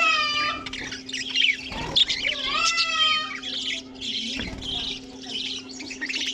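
Aviary flock of budgerigars and cockatiels chattering continuously, with louder sliding squawk calls near the start and again about halfway through, over a steady low hum.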